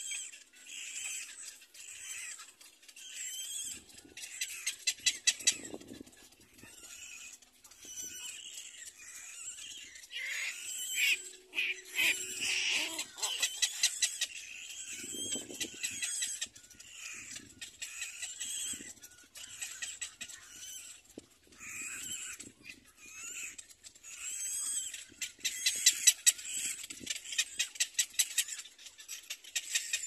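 Little black cormorant chicks begging for food with constant high-pitched squealing calls, broken by rapid runs of sharp clicking notes about five seconds in, around eleven seconds and loudest near the end.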